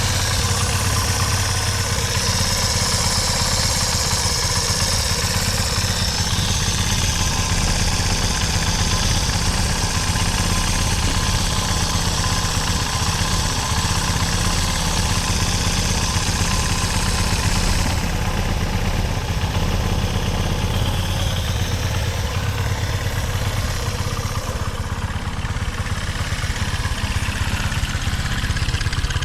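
Honda Ape 100 Deluxe's air-cooled single-cylinder four-stroke engine idling steadily, which the seller reports as free of abnormal noise.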